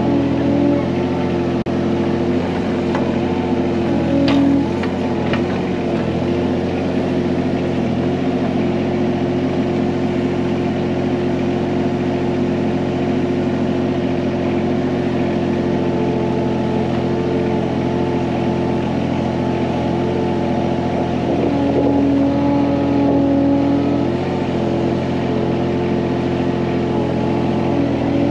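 John Deere 17G mini excavator's diesel engine running steadily while digging. A higher tone joins with a slight rise in level about four seconds in and again for a few seconds near the end, as the machine takes on more load.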